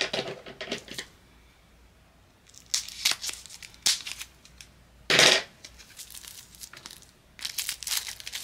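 Packaging on a jar of sugar scrub being torn and crinkled open in short rustling spurts, with one loud ripping tear about five seconds in.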